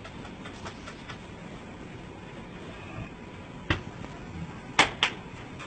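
Sharp knocks: one about two-thirds of the way in, then a louder pair in quick succession near the end, over faint scattered ticks.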